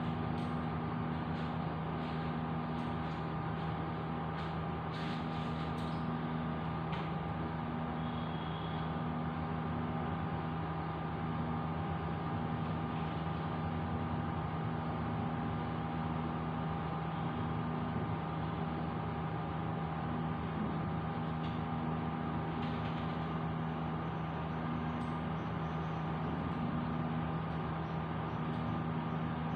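A steady machine hum made of several fixed tones, one of which pulses on and off about every second and a half, with a few faint clicks.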